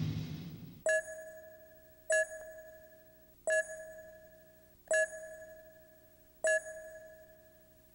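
Countdown beeps on a commercial tape's leader slate: five electronic beeps, each starting sharply and ringing away over about a second, spaced a little over a second apart. A brief burst of noise fades out in the first second, before the first beep.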